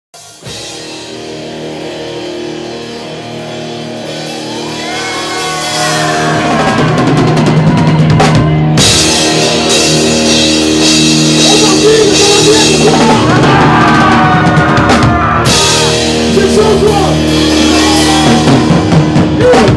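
Punk rock band playing live: distorted electric guitars, bass and a drum kit with crashing cymbals. The music grows louder over the first several seconds, and the cymbals drop out briefly twice.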